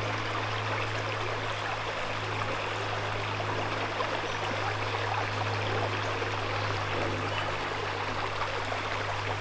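Shallow freshwater creek water running and trickling steadily, with a steady low hum underneath.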